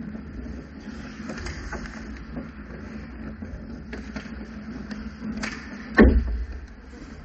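Ice hockey play on an indoor rink: skates scraping and sticks and puck clicking on the ice, with a single loud bang and low boom about six seconds in.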